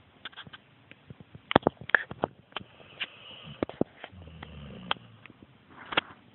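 A sleeping pet's snoring breaks into a run of sharp clicks and smacks, the loudest about a second and a half in and again near the end, with one brief low snore about four seconds in.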